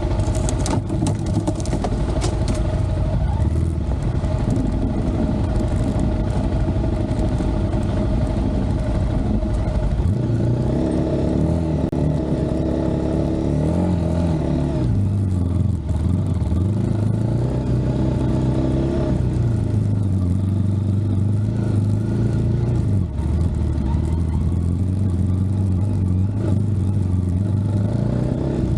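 An engine running steadily, then revved up and down several times from about ten seconds in.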